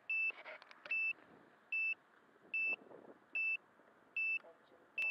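Electronic beeper on radio-control model gear giving short, high, identical beeps at an even pace, about one every 0.8 seconds, seven in all. Faint handling rustle comes between the beeps.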